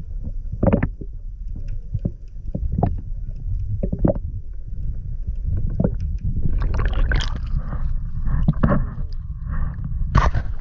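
Muffled sound of seawater picked up by an action camera held underwater: a deep rumble of moving water with scattered knocks and ticks on the housing. A rush of splashing builds over the last few seconds as the camera comes up out of the water.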